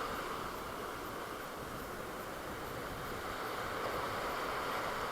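Steady hiss of sea surf and wind along the shore.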